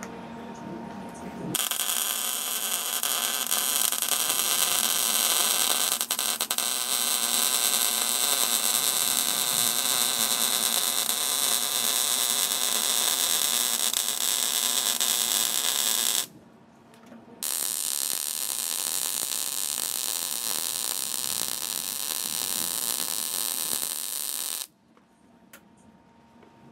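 Electric arc welding on steel: the arc's steady hiss as a weld bead is laid. It runs about fifteen seconds, stops for about a second, then goes on for about seven seconds more before the arc is broken.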